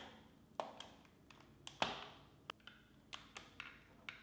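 Plastic locking tabs on a refrigerator evaporator fan motor cover clicking as they are pried loose with a small metal pick, with light taps of the tool on the plastic housing. About ten small, faint clicks, the loudest a little under two seconds in.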